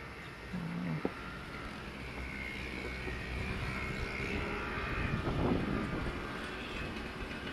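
A distant engine drones steadily over a low rumble, with a faint whine rising and falling in pitch for a few seconds mid-way.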